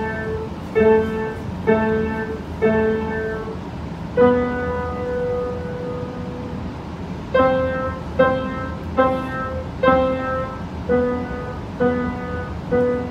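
Upright piano played one note at a time in a slow, simple melody, about a note a second, with one note held for about three seconds in the middle before the notes resume.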